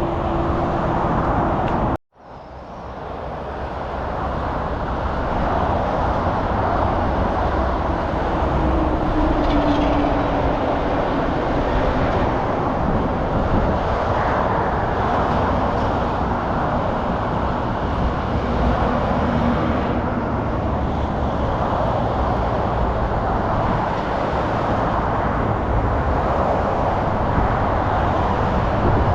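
Steady road traffic noise, a continuous rumble with a few slowly falling hums from passing vehicles. The sound cuts out for an instant about two seconds in and swells back over a couple of seconds.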